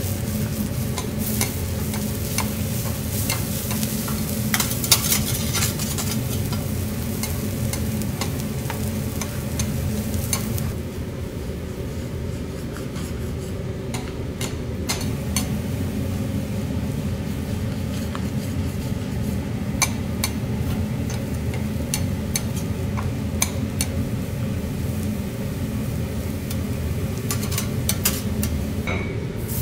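Minced garlic sizzling in oil on a steel teppanyaki griddle, with metal spatulas scraping across the hot plate and tapping on it in irregular clicks as the garlic is chopped and turned.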